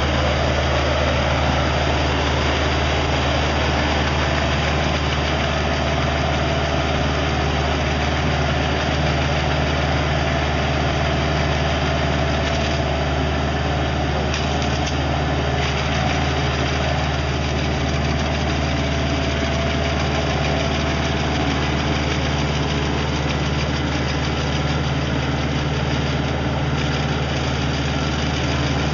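Tractor engine running steadily at a constant speed, with no change in pitch, as it powers a mounted brush trimmer.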